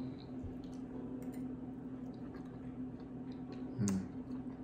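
Quiet eating sounds: faint scattered clicks of forks and chewing of cupcake, over a steady low room hum, with one brief louder sound near the end.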